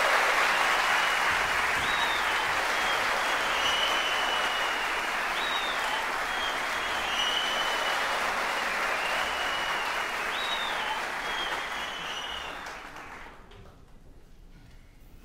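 Audience applauding, dying away about 13 seconds in.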